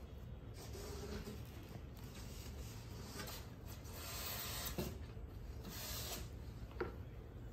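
Non-woven fabric dust cover rustling and rubbing as it is tugged and slid over a subwoofer cabinet, in several swishes. The loudest comes about four to five seconds in, and a faint tick follows near the end.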